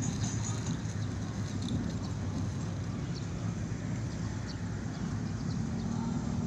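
Steady low rumbling background noise, with a few faint high ticks.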